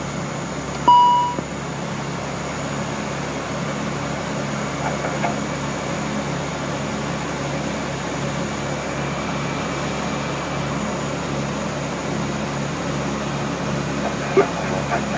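Steady drone of an ATR turboprop airliner's engines and propellers inside the cockpit during the climb after takeoff, with a single short electronic beep about a second in and a sharp click near the end.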